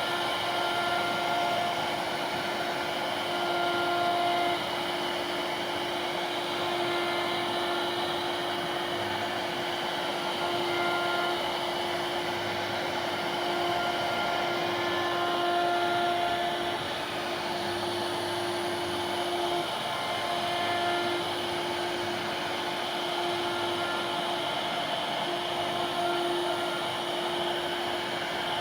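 CNC router running on wood: a steady spindle hum under a constant whirring hiss, with short higher whines coming and going.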